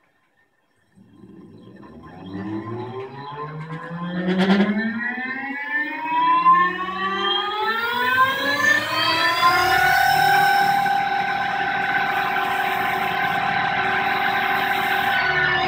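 EMRAX 228 axial-flux permanent-magnet synchronous motor, driven by eDrive 400 controllers, spinning up from standstill: an electric whine that rises in pitch for about nine seconds, then holds a steady high whine and begins to fall right at the end. A brief click comes about four seconds in.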